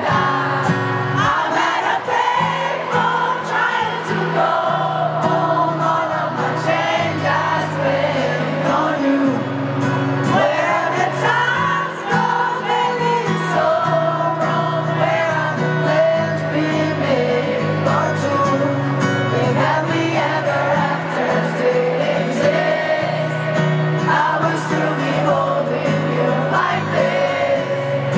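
Live acoustic pop song: a male lead voice sings into a microphone over strummed acoustic guitars, with a stadium crowd singing along.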